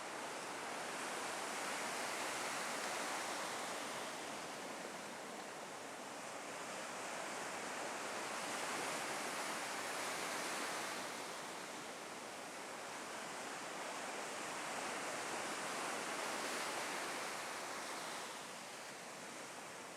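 Gulf surf washing onto a sandy beach, a steady rush of noise that swells and fades about three times as waves come in.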